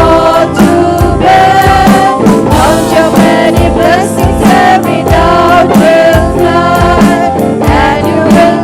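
Christian worship song: singing over instrumental backing with a steady drum beat.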